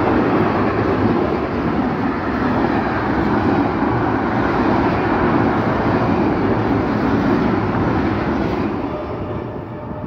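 Intermodal freight train of container and tank-container flat wagons rolling past close by, a steady rolling noise of wheels on the rails that fades near the end as the last wagon goes by.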